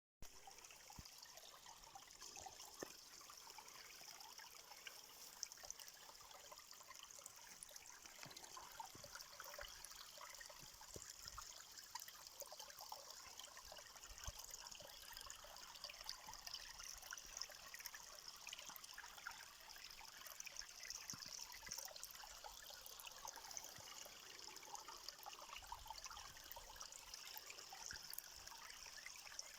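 Faint, steady trickling of running water, like a small stream, with fine splashing crackle throughout.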